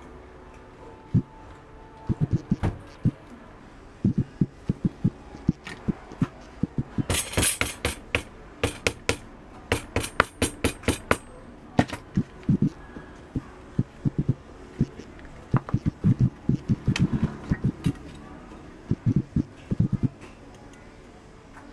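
Irregular dull knocks and taps as leather pieces and hand tools are handled on a stone work slab. A quick run of sharper clicks comes about seven to eleven seconds in.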